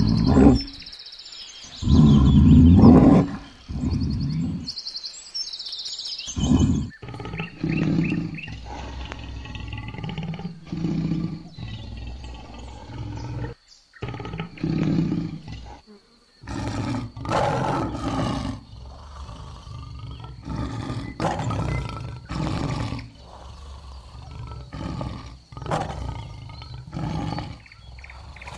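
Lion roaring: two long, loud roars, then a run of shorter deep calls about one a second, with abrupt cuts between them.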